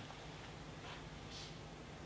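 Quiet room tone: a low steady hum and hiss, with two faint, brief soft rustles about a second and a second and a half in.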